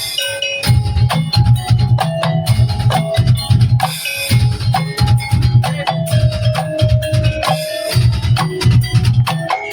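Tongtek percussion ensemble playing: rapid, dense clicks like bamboo kentongan or wood blocks over a repeated low drum beat, with short pitched notes ringing above.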